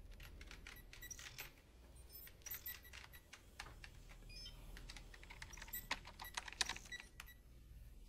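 Irregular clicks of typing on a computer keyboard, some keystrokes sharper than others, over a low steady hum.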